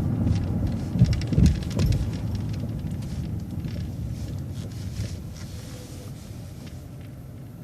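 City transit bus running, heard from on board: a low road and engine rumble with a couple of knocks between one and two seconds in, dying down steadily as the bus slows.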